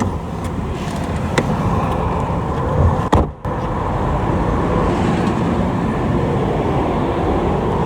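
Steady road traffic noise, with a brief break about three seconds in.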